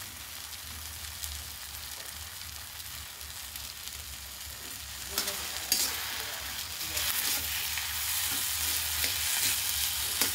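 Mashed potato masala sizzling in a black iron kadhai. From about five seconds in, a steel spatula scrapes and clicks against the pan as the mixture is stirred and roasted, and the sound grows louder.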